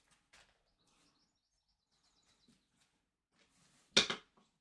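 A carving tool taking a big lump off a sculpture: faint scraping and ticking, then one short, loud cut or crack about four seconds in as the lump comes away.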